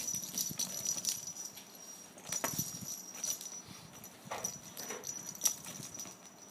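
Bengal kitten scrambling and pouncing in a plastic basket: irregular clicks, knocks and scratches of claws and paws on the plastic.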